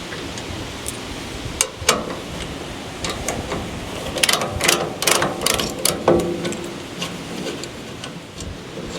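Metal parts being handled: scattered clinks and knocks, with a quick run of several clinks in the middle and a louder knock that rings briefly just after, over a steady hiss.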